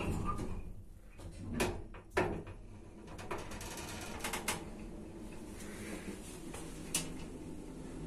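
Kone EcoDisc gearless traction elevator travelling upward: a steady low hum from the car in motion, broken by several sharp mechanical clicks and a short run of quick rattling ticks in the first half, and one more click about seven seconds in.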